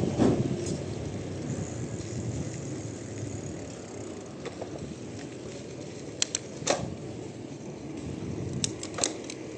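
Bicycle rolling along a country road: steady tyre and wind noise with a few sharp rattling clicks, a pair about six seconds in, another soon after, and a cluster near the end.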